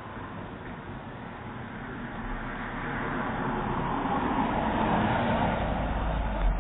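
A car passing, its engine and tyre noise growing louder over several seconds and loudest near the end, with a brief thump just before it ends. The sound is thin and band-limited, as heard through a doorbell camera's microphone.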